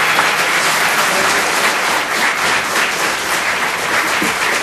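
Live audience applauding, a steady dense clapping with no music under it.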